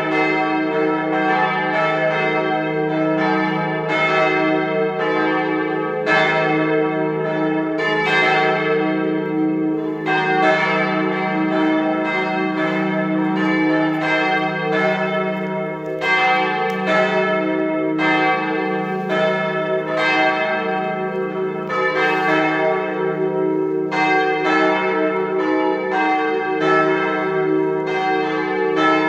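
Several church bells swinging in a partial peal, their strokes coming in an irregular overlapping pattern while the deep hum of the bells lingers steadily underneath.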